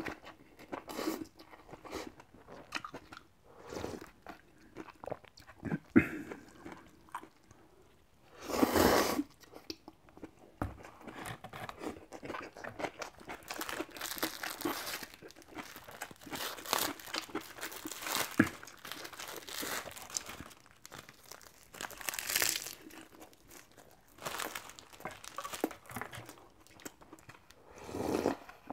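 Close-up eating sounds: slurping instant ramen noodles, chewing with crunchy bites, and a plastic triangle-kimbap wrapper crinkling as it is peeled open about halfway through. Near the end, broth is slurped straight from the bowl.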